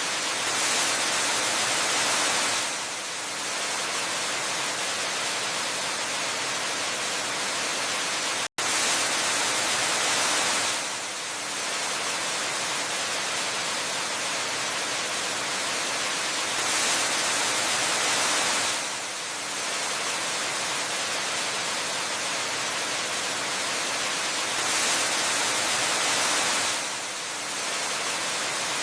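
Steady rushing hiss of a waterfall's falling water. It swells a little louder for about two seconds roughly every eight seconds, and cuts out for an instant about eight and a half seconds in.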